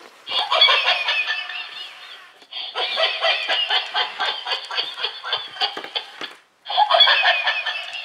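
Battery-powered plush laughing dog toy playing its recorded laugh through its small speaker, thin-sounding with no bass, in three long bursts broken by short pauses about 2.5 and 6.5 seconds in.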